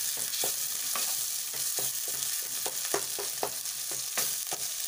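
Onion-tomato masala sizzling in hot oil in a kadai while a spatula stirs it, with frequent short scrapes and taps of the spatula against the pan, about two or three a second.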